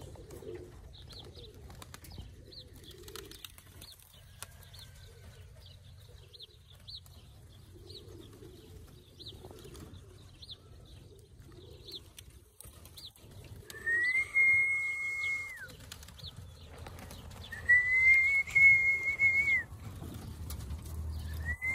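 Two long, level whistles, each under two seconds, about three seconds apart, calling roller pigeons down to the loft. Behind them are soft pigeon coos and faint bird chirps about twice a second, and wings flap as birds land near the end.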